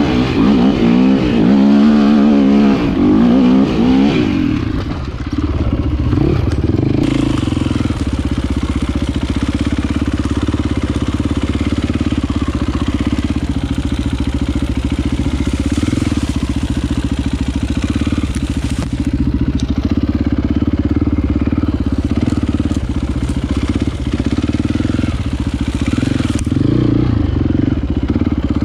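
Enduro motorcycle engine revving up and down for the first few seconds, then running at a steady speed.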